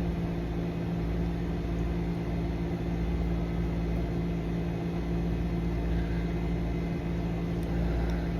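Steady machine hum, a low drone with a few constant tones over a low rumble.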